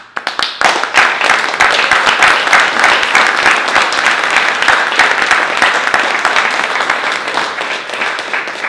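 Audience applauding at the close of a talk: clapping starts suddenly, stays dense and steady, and begins to die down near the end.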